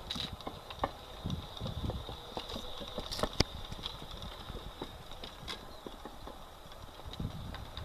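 Small electric bike running, its motor giving a steady high-pitched whine that fades as the bike moves away and grows as it comes back. Irregular clicks and knocks come from the small wheels and frame, the loudest a sharp knock about three and a half seconds in, over uneven low rumbles.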